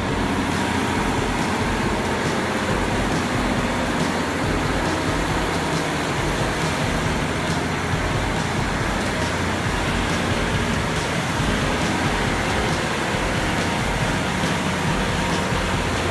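A cutterhead gold dredge's machinery running steadily at full steam: a loud, even mechanical din with a constant low hum.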